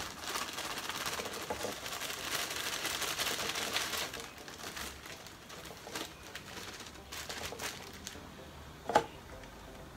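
Loose substrate poured from a plastic zip-lock bag into a small plastic tarantula enclosure: a rustling hiss with the bag crinkling over the first four seconds, then quieter rustles and scattered light clicks, with one sharp click near the end.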